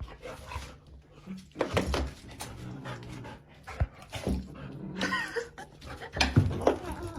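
A dog whining in short rising and falling glides, with scattered knocks and rustles.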